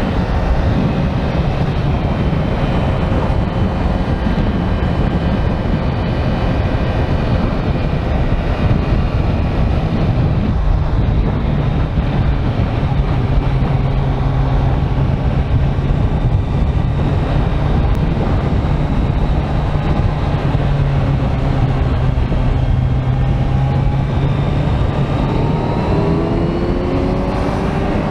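Kawasaki Z900's inline-four engine running under way at a steady note for most of the stretch. It revs up, rising in pitch, near the end, over a constant rush of road and air noise.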